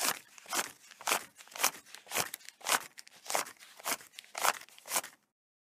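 Persian cat chewing a rat, with a sharp bite about twice a second; the chewing stops suddenly near the end.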